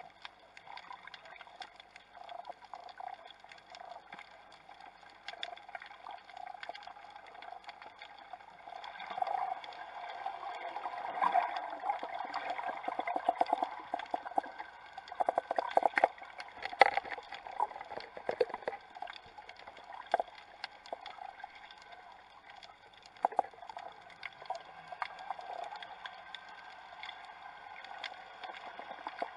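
Underwater sound picked up by a submerged camera: a steady hiss with scattered crackling clicks. From about a third of the way in it grows louder and busier, with dense clicking and gurgling, while a free-diving snorkeler swims down close to the camera.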